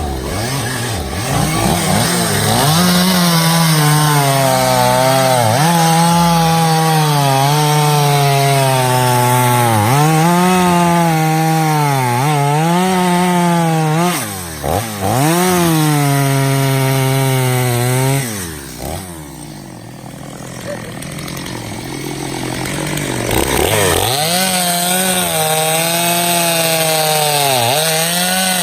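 Stihl chainsaw cutting black locust firewood at full throttle, its engine pitch sagging and recovering as the chain bogs in the cut. Shortly past the middle the throttle is let off to idle for a few seconds, then it revs back up and cuts again.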